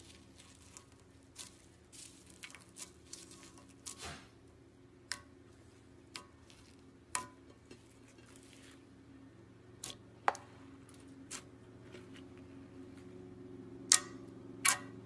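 Slime being squeezed and pressed by hand, giving scattered wet clicks and pops, the two loudest close together near the end. A faint low steady hum lies underneath.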